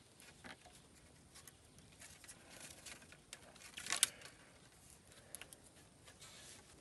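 Faint rustling and scraping as a thin binding strip is pulled and wrapped around wooden poles to lash them together, with a sharper scrape about four seconds in.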